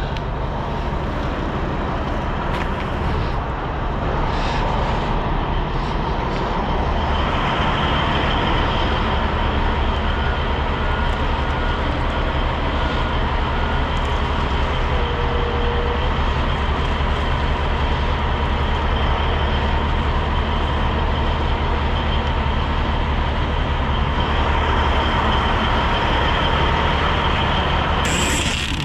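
Steady running of an idling diesel truck engine, with a higher steady whine joining about seven seconds in.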